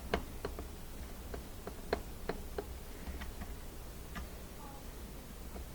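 Sharp, irregular clicks and taps, one or two a second, of a tool working a hose clamp as it is tightened on a dishwasher pump hose, over a steady low hum.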